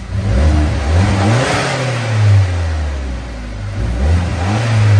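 Turbocharged VW Tiguan engine with an upgraded K04 turbo and a K&N panel filter in the stock airbox, revved up from idle twice, each rev rising in pitch and falling back.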